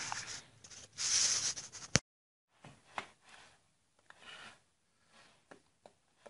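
Rubbing and scraping noise of a handheld camera being moved close over a car body panel. It is loudest about a second in and cuts off abruptly at about two seconds. After that there are only faint, scattered clicks and rustles from clothing and hand movements.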